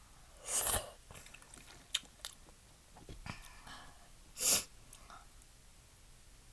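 Eating instant udon noodle soup: chewing with small mouth clicks, broken by two short, loud noisy sounds about half a second in and at about four and a half seconds.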